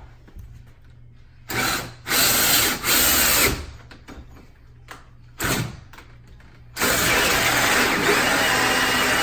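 Power drill with a hole saw cutting a lock hole into a door: three short bursts, a brief one, then a long steady run from about seven seconds in.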